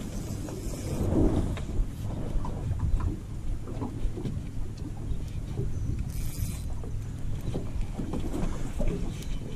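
Wind buffeting the microphone on an open boat, a steady low rumble, with water lapping at the hull and a few light knocks. A brief hiss comes about six seconds in.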